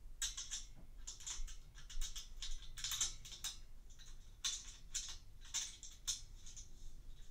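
Small steel bolts, washers and nuts clicking and clinking as they are handled and fitted by hand onto a metal bed-frame leg: a run of irregular light clicks.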